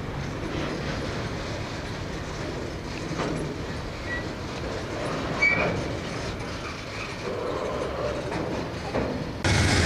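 Loaded coal hopper cars rolling slowly in reverse: a steady rumble of steel wheels on rail with occasional knocks and a few short, high wheel squeals. Near the end it cuts abruptly to a louder, steady diesel locomotive engine sound.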